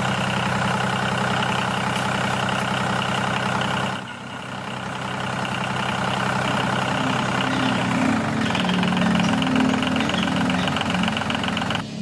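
Tractor engine running steadily. It dips briefly about four seconds in, and the tone shifts higher from about eight seconds in.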